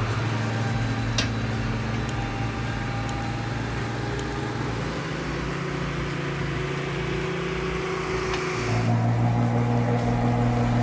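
Heavy vehicle's diesel engine running steadily under load; its pitch drops about halfway through, and it becomes louder from about nine seconds in, with a few light clicks.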